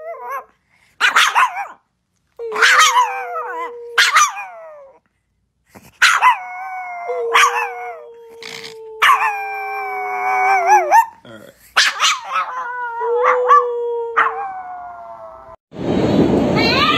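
A Chihuahua giving a series of high-pitched howling cries, about eight of them, each starting sharply and sliding down in pitch, some held for a second or more. Near the end the sound cuts to the steady noise of a subway train in motion.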